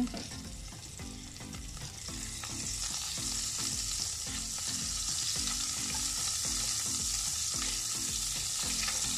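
Butter sizzling and melting in hot oil in a stainless steel pan while a metal spoon stirs it through. The sizzle builds over the first few seconds, then holds steady.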